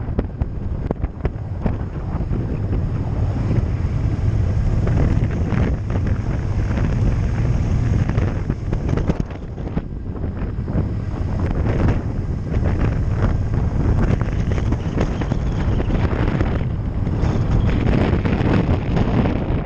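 Wind rushing over a helmet-mounted camera's microphone on a moving motorcycle, with the motorcycle's engine running underneath. The level dips briefly about ten seconds in.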